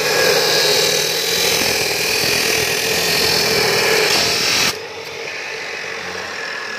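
Abrasive cut-off saw (chop saw) cutting through the steel barrel of a homemade gun, a loud, steady grinding and screech of the abrasive wheel on metal. The cutting noise stops suddenly after about four and a half seconds as the wheel is lifted clear, leaving the saw's motor still running, more quietly.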